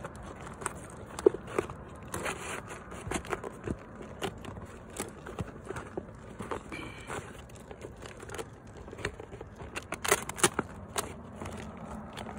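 Asphalt shingles and a rubberized ice-and-water membrane handled by hand as a lead pipe-jack flashing is worked in under the shingles: scattered crackles, clicks and scrapes, with a thicker run of clicks about ten seconds in.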